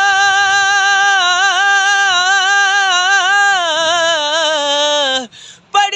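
A man singing a Punjabi naat unaccompanied, holding one long note with a slight vibrato. The note slides down and breaks off about five seconds in, and he starts the next line just before the end.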